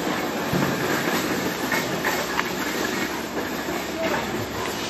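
Rain falling steadily: an even hiss with scattered sharper ticks of single drops striking close by.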